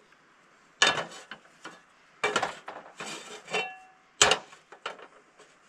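Metal clanks and rattles of a frying pan being set on a camp stove's grate: several sharp knocks, one ringing briefly with a metallic tone about three and a half seconds in.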